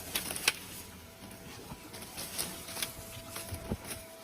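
Ground-nesting wasps starting to fly out of their nest hole: a faint, thin, steady hum that begins about a second in, with a few light clicks and taps.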